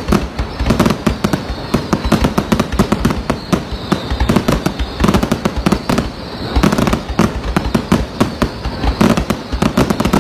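Aerial fireworks going off in a dense, continuous barrage of bangs and crackles, many reports a second.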